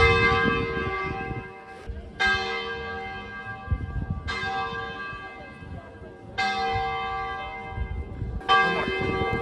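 A church bell tolling slowly. There are five strokes, about one every two seconds, and each rings on and fades until the next.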